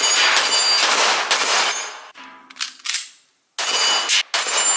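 Pistol shots fired in rapid strings, their sharp reports running together into continuous loud crackle. One string stops about two seconds in, and another starts after a gap of about a second and a half.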